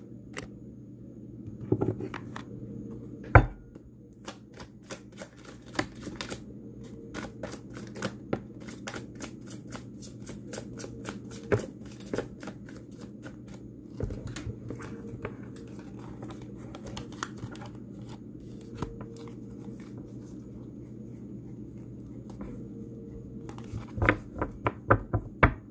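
A deck of tarot cards being shuffled by hand: runs of quick, light card clicks, densest in the first half and again in a brief flurry near the end, with one sharp knock about three seconds in. A steady low hum lies under it.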